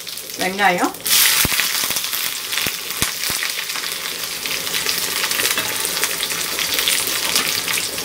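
Onions dropped into hot oil with mustard seeds and curry leaves in a kadai for a tempering: a sudden loud sizzle about a second in that settles into steady frying, with a few sharp clicks in the first few seconds.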